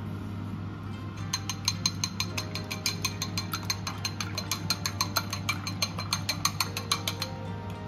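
Egg white being beaten in a small glass bowl: a utensil clinks fast and evenly against the glass, about seven clinks a second. The clinking starts about a second in and stops shortly before the end.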